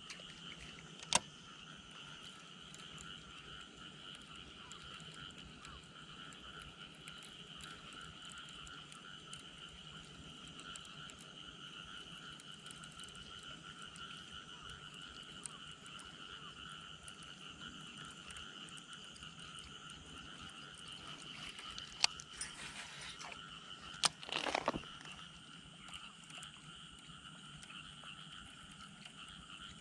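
A steady chorus of frogs calling by the creek. A sharp click comes about a second in, and a few more clicks and a brief louder knock come about three quarters of the way through.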